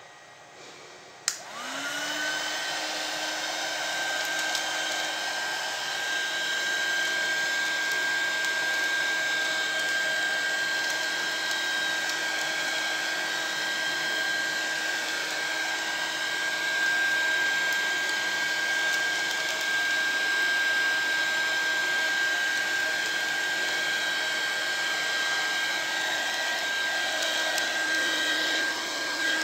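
A small 300 W hot air gun clicks on about a second in. Its fan quickly spins up, then runs steadily, blowing hot air with a rushing sound and a steady whine.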